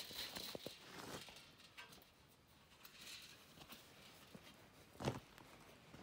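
Near silence with faint footsteps and a few soft clicks, and one louder knock about five seconds in.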